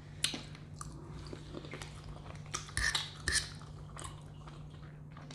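Close-miked eating: scattered short clicks of chewing and mouth smacks, and of cutlery against a plate, with a few louder ones around the middle. A steady low hum runs underneath.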